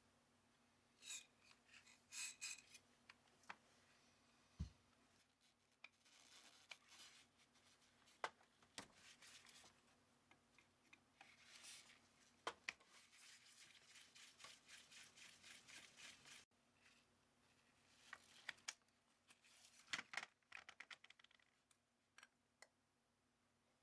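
Faint handling of small metal carburettor parts and hand tools: scattered light clicks and taps, with several stretches of scraping and rubbing.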